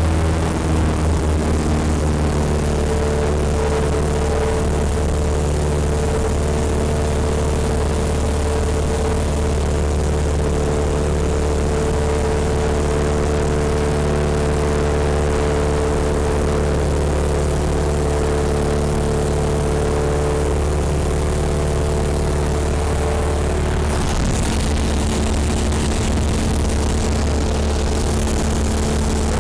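Cessna 172's piston engine and propeller droning steadily in flight, heard from inside the cabin. Near the end the engine note shifts and a brighter hiss comes in.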